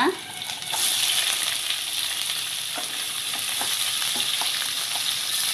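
Chopped onion and curry leaves sizzling in hot oil in a nonstick kadai. The sizzle jumps up sharply less than a second in as the onion hits the oil, then holds steady, with light scrapes of a spatula stirring it.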